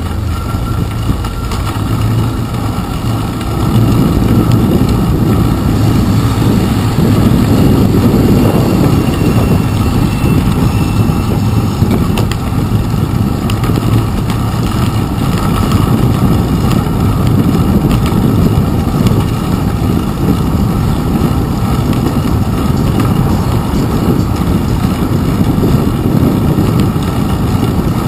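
Low, steady rumble of wind and road vibration from a bicycle riding on wet pavement, picked up muffled through a handlebar-mounted GoPro's waterproof housing. It grows louder about four seconds in and stays loud.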